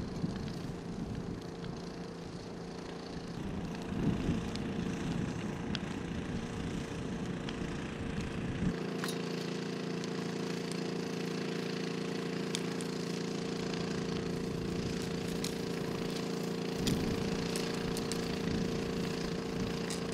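A small engine running at a steady speed, with hiss and scattered crackles above it. Wind rumbles on the microphone through the first half and drops away sharply at a cut about nine seconds in.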